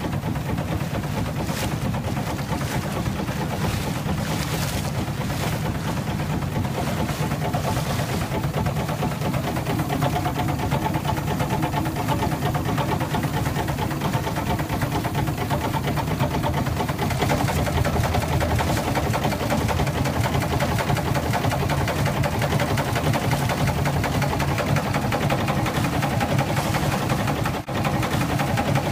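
Boat engine running steadily, with no change in pace.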